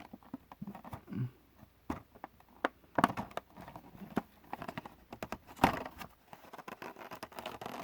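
Scattered clicks and taps from handling a package of three diecast toy cars. The two loudest knocks come about 3 seconds in and just before 6 seconds.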